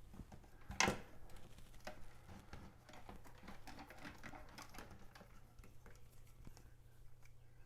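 Light clicks, taps and handling sounds from hands plugging in an LED strip's remote controller under a desk and getting its 3M adhesive strip ready, with one sharper knock about a second in.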